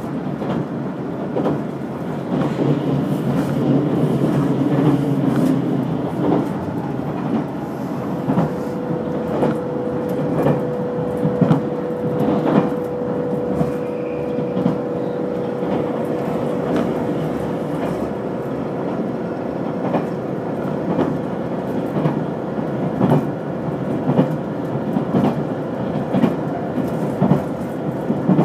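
Ishizuchi limited express electric train running at speed, heard from inside the carriage: a steady rumble with the wheels clicking over rail joints. A thin, steady whine joins in about eight seconds in.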